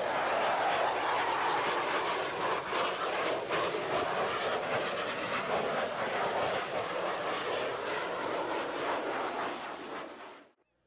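Jet noise of an F/A-18 Hornet flying past, its twin turbofans heard as a loud, steady rush. It fades after about nine seconds and cuts off abruptly near the end.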